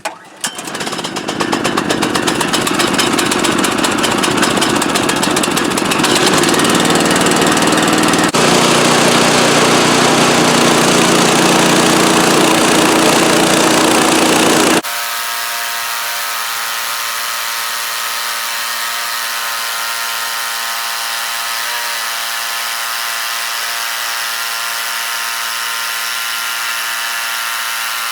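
A Woodland Mills HM126 bandsaw sawmill with its 14 hp engine running and the band blade sawing lengthwise through a tilted aspen cant. About 15 seconds in, the loud noisy cutting sound stops abruptly and leaves a quieter, steady pitched hum of the mill running on.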